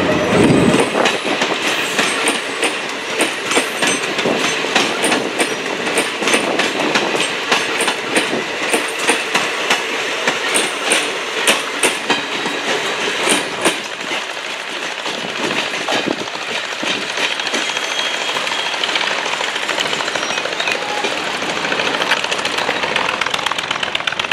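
Indian Railways express passenger coaches rolling past, their wheels clicking rhythmically over the rail joints, the clicks giving way to a steadier rail noise about halfway through as the end of the train goes by.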